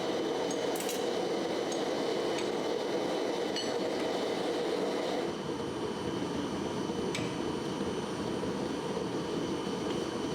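Steady roar of a blacksmith's forge running, with a few light metallic clinks of tools on metal, spaced a second or more apart.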